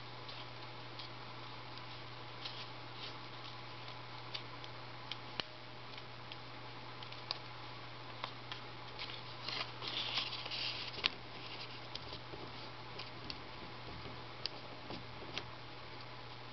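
Folded origami paper crackling and rustling as fingers handle and crease it: scattered small ticks, with a denser patch of rustling about ten seconds in, over a steady low hum.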